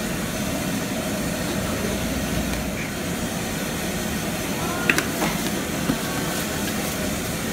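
Steady hiss and hum of a commercial kitchen's running machinery, with a sharp click about five seconds in, as a spoon knocks against the claypot while toppings are spooned on.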